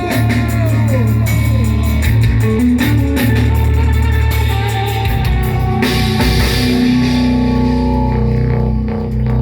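Rock band playing an instrumental stretch of the song, with guitars and bass over a drum kit and no vocals.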